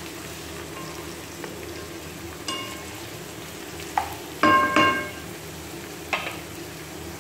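Chopped onions and green chillies sizzling in hot oil in a frying pan as they are stirred with a wooden spatula. A few sharp clinks ring out briefly; the loudest two come close together about halfway through.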